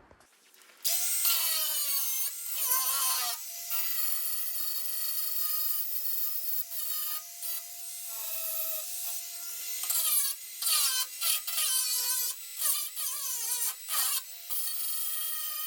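Electric angle grinder grinding steel on a combine's cracked tailboard ahead of welding: a high whine over a harsh hiss, its pitch dropping as the disc is pressed into the metal. It lifts off and comes back on several times near the end.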